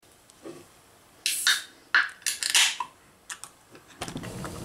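Aluminium beer can of wheat beer opened by its pull tab: a sharp hiss of escaping gas about a second and a half in, followed by a few more short hisses and clicks.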